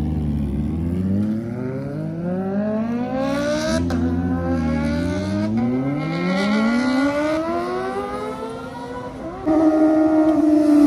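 Kawasaki ZX-25R's 250 cc inline-four with an aftermarket exhaust accelerating hard, its pitch climbing through the gears with brief dips at the shifts. About nine and a half seconds in, a louder, higher, steadier engine note cuts in.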